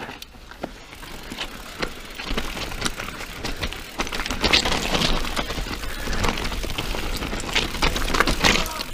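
Mountain bike descending a dirt singletrack: tyres running over the trail, with many sharp knocks and rattles from the bike and a low rumble. It gets louder about four seconds in.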